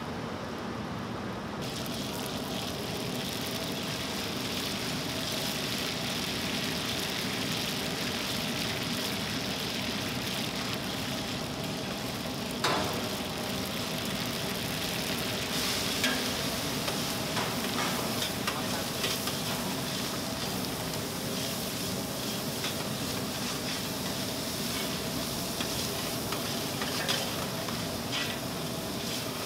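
Hot oil sizzling steadily as food fries in a kadai and then in a steel pot. A metal ladle stirs and scrapes, with a sharp clink about halfway through and scattered clinks in the second half.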